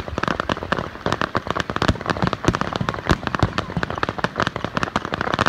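Fireworks crackling: a dense, rapid string of small sharp pops and bangs, many each second.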